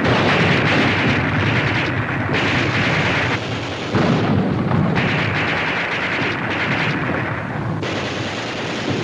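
Battle sound effects: a continuous din of gunfire and shellfire, with abrupt changes in the mix a few times where the soundtrack is cut.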